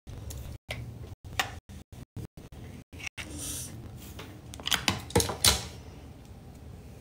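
A few sharp clicks and knocks of objects being handled and set down, loudest in a cluster about five seconds in, over a low hum. The audio cuts out briefly again and again, like a glitching live-stream feed.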